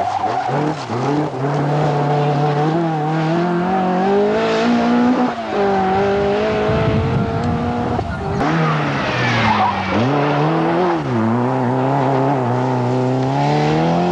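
Rally car engine revving hard and pulling through the gears, its pitch climbing and then dropping sharply at each gear change. A rush of tyre and loose gravel noise comes in about halfway through.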